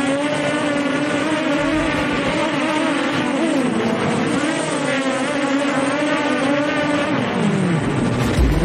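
Quadcopter drone's motors and propellers whining steadily, heard close up from a camera mounted on the drone, the pitch wavering as it manoeuvres and swooping down and back up near the end.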